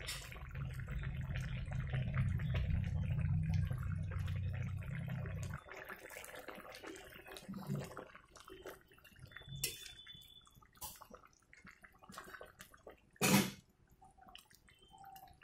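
A steady low hum runs for the first five seconds or so and then cuts off suddenly. After that a metal spatula stirs a simmering fish and vegetable curry in a kadai, with small liquid sounds and light taps, and one loud clank against the pan near the end.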